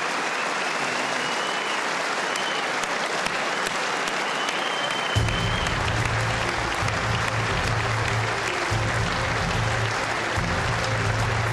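A large audience applauding. About five seconds in, music with a heavy, rhythmic bass starts up under the clapping.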